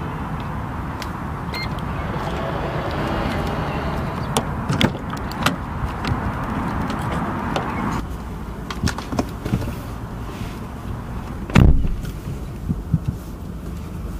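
Peugeot 5008's powered tailgate motor whirring steadily as it closes, with a few sharp clicks. Later comes a heavy car-door thump, the loudest sound, and scattered light clicks inside the cabin.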